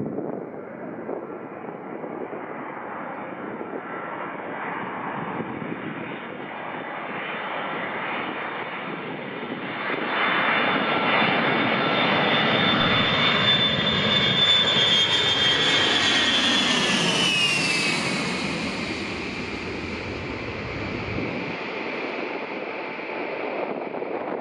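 Boeing E-3A AWACS's four TF33 turbofan jet engines on low approach, growing louder with a steady high whine. About ten seconds in the aircraft passes close, loudest for several seconds, and the whine drops in pitch as it goes by, then the engine noise eases off.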